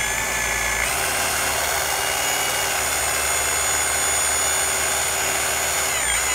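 Cordless drill spinning a rubber eraser wheel against car paint, a steady high whine over a rubbing hiss as the wheel scrubs old emblem adhesive off the tailgate.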